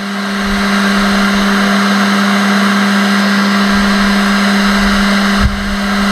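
Electric heat gun running steadily: a constant fan-motor hum with a rush of blown air, dipping briefly near the end.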